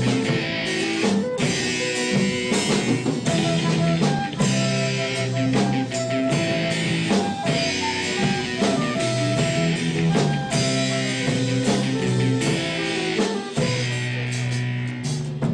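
Instrumental rock music: guitar chords over a steady drum-kit beat.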